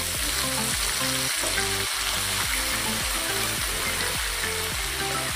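Water spinach and bean sprouts sizzling loudly as they fry in hot oil in a wok, a steady hiss that starts as the vegetables go in.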